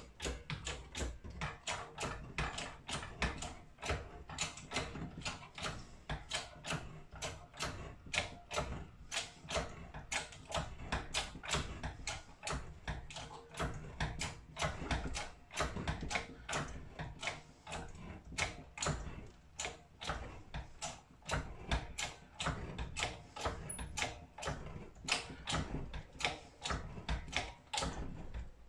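Keyway broach being pushed through the bore of a small gear in a hydraulic bench press, cutting a keyway: a steady run of sharp mechanical clicks, about three a second.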